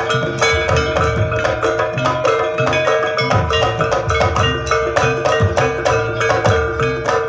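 Live jaranan accompaniment music: a fast, busy pattern of drums and struck gamelan-style percussion over a long held note that drops out briefly about two seconds in.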